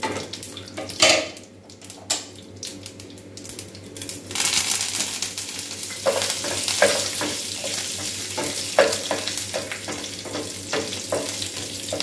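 Mustard seeds, urad dal and dried red chillies frying in a little hot oil in a small nonstick pan, stirred with a wooden spatula. Light crackling and spatula taps give way about four seconds in to a sudden, much louder sizzle as curry leaves go into the hot oil, with the spatula scraping and knocking on the pan through it.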